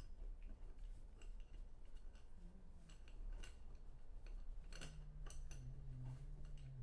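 Light scattered clicks and clinks of small kit parts being handled and fitted, with a quick run of sharper clicks about five seconds in.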